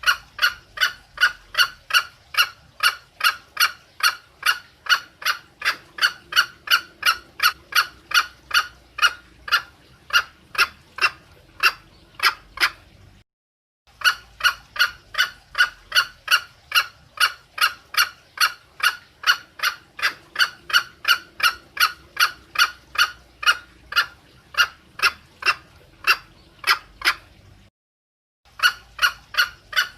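Female green junglefowl calling: a short, sharp note repeated about twice a second without pause, broken twice by a moment of dead silence. It is the hen's call for a cock, used as a lure.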